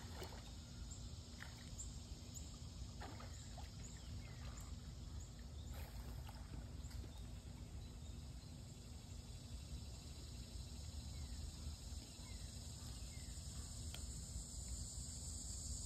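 Faint steady high drone of insects, with soft water splashes from a person swimming, mostly in the first half, over a low rumble.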